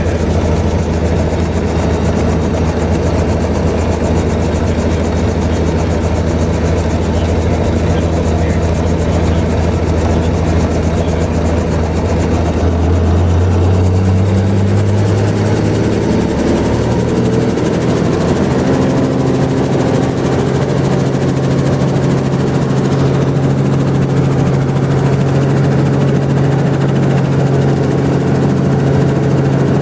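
Helicopter turbine and rotor running, heard from inside the cabin. The low, steady beat steps up in pitch about halfway through as the rotor speeds up, then holds at the higher speed, typical of a helicopter winding up to flight rpm before lifting off.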